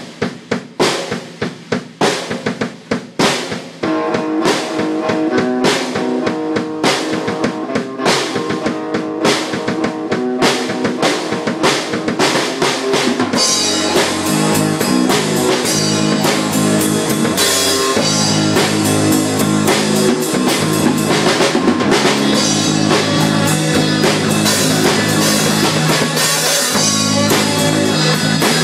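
Drum kit and electric bass improvising a funky jam. The drums start with separate, spaced hits and settle into a dense groove, and from about halfway in the cymbals ring almost constantly over the bass line.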